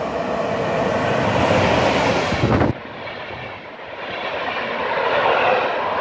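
Electric locomotive hauling a PKP Intercity passenger train passing through at speed: a rising rush that drops off sharply about three seconds in as the locomotive goes by, then the coaches' wheels running over the rails, building up again near the end.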